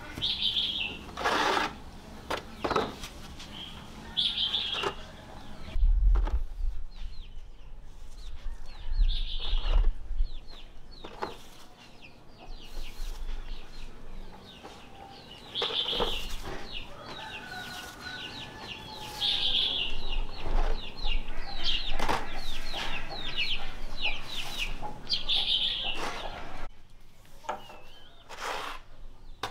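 Chickens clucking and calling, with wings flapping and scattered knocks; short high calls come every few seconds between quicker runs of notes.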